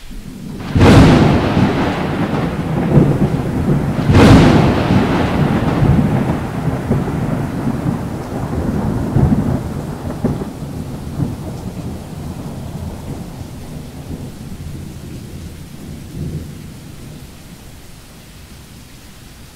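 Two loud thunderclaps about three seconds apart. Each cracks suddenly and then rolls off into a long, slowly fading rumble.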